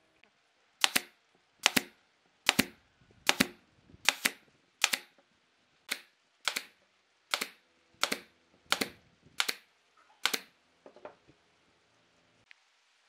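Brad nailer firing about thirteen times in steady succession, one sharp double clack roughly every 0.8 seconds, driving brads through thin pine strips into a wooden ring.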